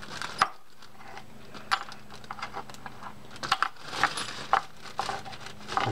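Small metal fishing-reel parts clinking together as they are dropped and handled in a plastic bag: a scatter of light clicks, busiest around four seconds in.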